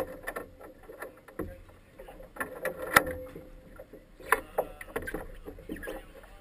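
Scattered knocks and clatter of people moving about and handling gear aboard a small boat tied up at a dock, with a sharp knock about three seconds in.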